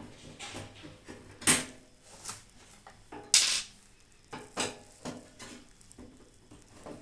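Metal clinks and knocks from a microwave oven's metal body and door being handled during dismantling, with two louder clanks about a second and a half in and near the middle.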